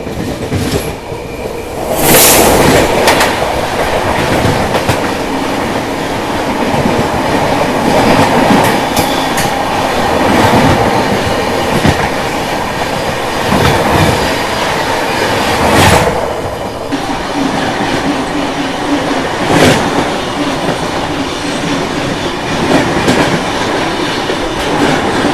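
AP Express crossing on the adjacent track at speed, heard from the open door of a moving train. A sudden loud rush of air and wheel noise comes about two seconds in as its locomotive draws level. Then comes the steady clatter of its coaches' wheels over the rail joints, with a few sharper knocks.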